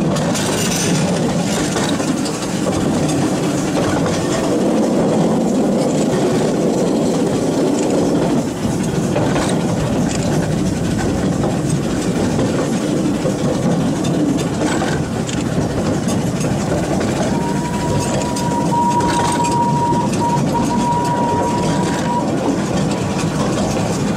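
Miniature railway train running along the track, heard from on board: a steady rumble of the wheels with sharp clicks now and then over rail joints and points. Near the end a steady high whistle sounds for about five seconds, with a short break in it.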